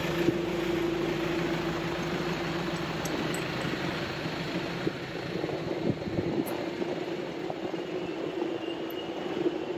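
City street traffic noise with a steady low vehicle hum whose deepest part fades after about three seconds.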